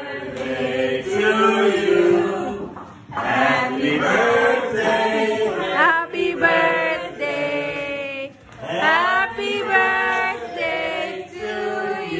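A group of party guests singing a birthday song together, many voices in unison with short pauses between lines.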